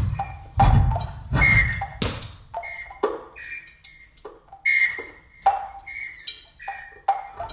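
Irregular series of sharp percussive hits, about one or two a second, each followed by a brief ringing tone at the same few pitches, some with a low thud beneath: experimental music played on improvised percussion instruments.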